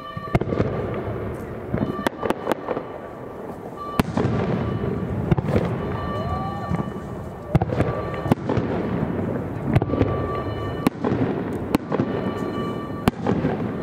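Japanese aerial firework shells bursting in the sky, about a dozen sharp bangs at irregular intervals of roughly a second, with a rolling rumble of echoes between them.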